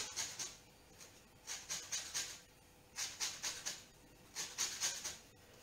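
An orange rubbed against a metal hand grater, zesting the peel: four short spells of quick scratchy grating strokes, about one every second and a half.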